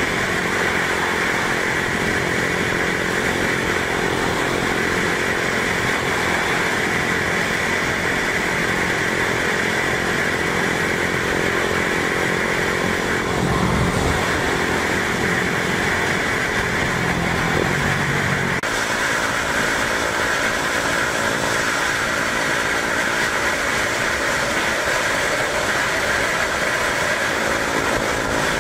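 Honda CBR250R motorcycle engine running steadily under way, heard from the rider's position along with road and wind noise. A swelling low sound comes in about halfway through, and the engine note changes abruptly about two-thirds of the way in.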